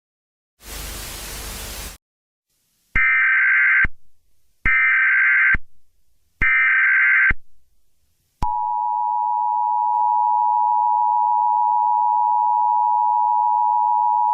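A burst of static hiss, then three Emergency Alert System SAME header data bursts of about a second each. About eight seconds in, the steady two-tone EAS attention signal (853 and 960 Hz) starts.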